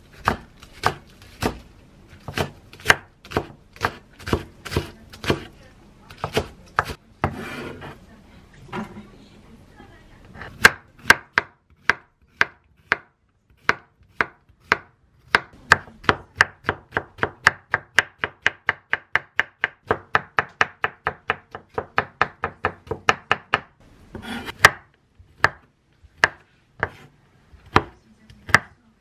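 Chef's knife chopping on a wooden cutting board: a series of sharp knocks as scallions, then Korean zucchini rounds, then thawed shrimp are cut. In the middle the cuts come in a quick even run of about four a second.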